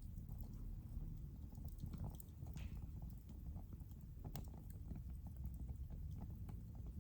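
Wood fire burning in a fireplace: a steady low rumble of flames with scattered small crackles and pops, and a brief hiss about two and a half seconds in.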